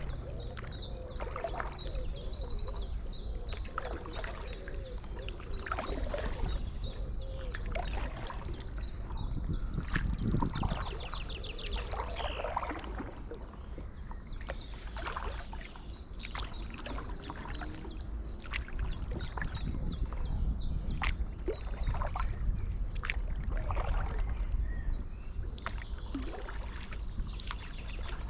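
Stand-up paddleboard paddle dipping and splashing in canal water, stroke after stroke, with birds singing in quick trills and a low wind rumble on the microphone.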